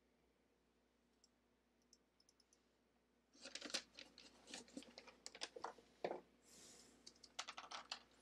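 Irregular taps, clicks and scrapes close to the microphone, like something being handled right by the phone. They start about three seconds in, after near silence.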